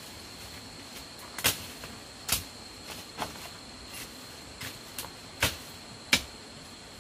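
Irregular chopping strikes of a machete-like blade cutting into forest undergrowth, about seven blows a half second to a second apart, starting about one and a half seconds in. A steady high insect drone runs underneath.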